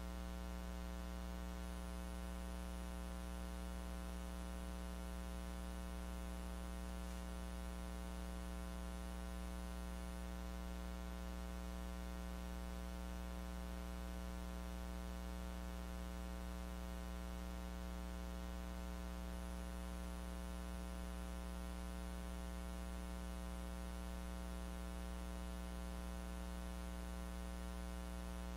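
Steady electrical mains hum with a buzzy stack of even overtones, unchanging throughout, plus a faint thin high whine that comes in for two stretches. No speech is heard: the lecture's sound was not captured, leaving only hum from the recording chain.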